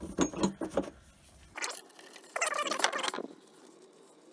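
Hand ratchet clicking and metal tools clinking as a differential drain plug is loosened, in a quick cluster in the first second, with a short pitched squeak-like sound about two and a half seconds in.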